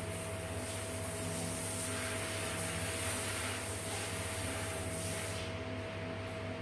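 A steady low mechanical hum with a thin, higher steady whine over it, and a high hiss that stops about five and a half seconds in.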